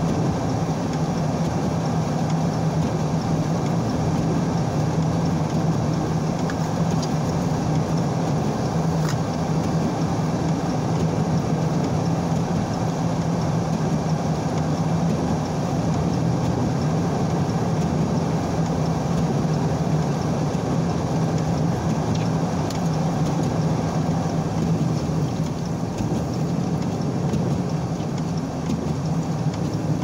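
Steady in-cabin noise of a car driving: engine and road noise with a constant low hum.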